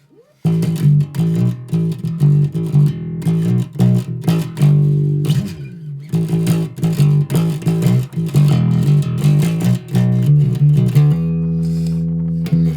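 Background music: a plucked bass and guitar line with sharp hits keeping a steady beat, starting about half a second in and ending on a held chord.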